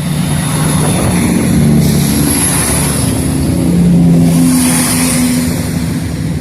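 Class 170 Turbostar diesel multiple unit pulling away under power, its underfloor diesel engines running loudly, with the engine note swelling about two seconds in and again about four seconds in.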